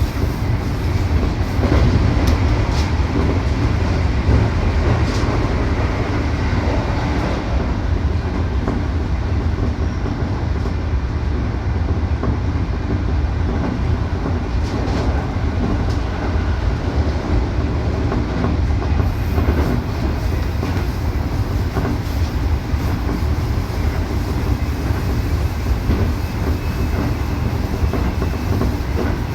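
Keikyu electric train running, heard from inside the car: a steady low rumble of wheels and running gear, with scattered clacks of the wheels over the rail joints.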